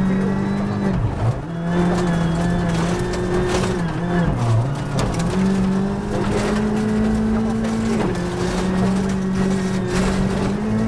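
Ford Fiesta R5 rally car's turbocharged four-cylinder engine heard from inside the cabin on a gravel stage: it runs hard, drops in pitch through the gears under braking about a second in, and picks up again about halfway as the car accelerates. Sharp knocks now and then over the engine.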